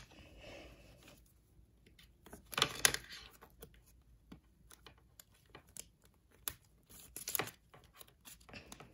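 Clear plastic card sleeve crinkling and rustling as a trading card is handled, with small scattered clicks; two louder rustles come about three seconds in and about seven and a half seconds in.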